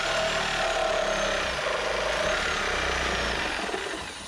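Reciprocating saw cutting through an old wooden 2x4 ceiling joist, running steadily at full speed, then easing off just before the end.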